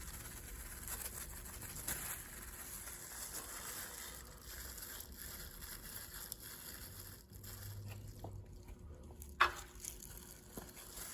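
Faint rustling and handling noises, as from gloved hands working a cloth applicator, with one sharp click about nine seconds in.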